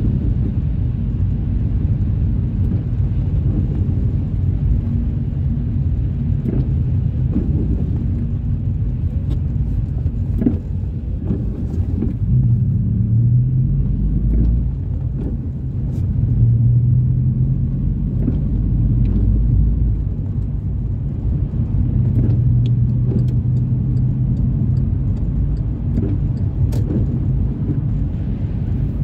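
Car being driven: a steady low road and engine rumble, with a low drone that comes and goes in stretches and occasional light knocks.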